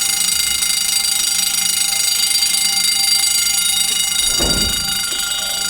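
Building fire alarm sounding: a steady, high, unbroken alarm tone. A brief low thump about four and a half seconds in.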